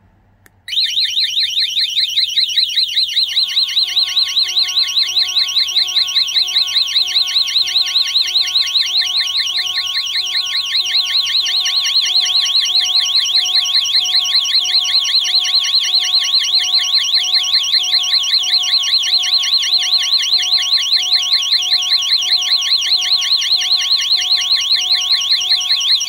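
Godrej Eagle i Nxt wireless home alarm siren going off in SOS emergency alarm mode, triggered from the remote's SOS button: a loud, high, fast warbling wail that starts under a second in and keeps going. About three seconds in, a steady lower tone sounds along with it.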